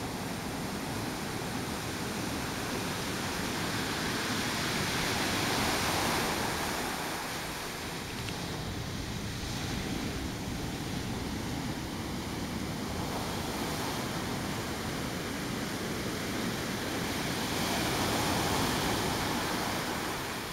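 Ocean surf breaking on a beach: a continuous wash of waves that surges louder about six seconds in and again near the end as waves crash and run up the shore.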